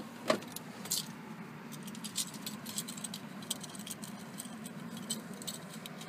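Scattered light clicks and small rattles, several a second at times, over a low steady hum in a stationary car's cabin.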